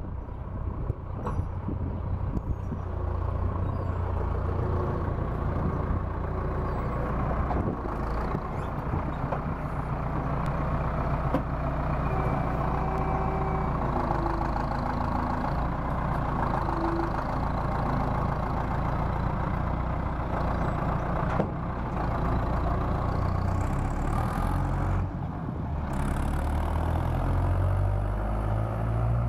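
Farm tractor engine running steadily at a low pitch while towing a wheeled machine.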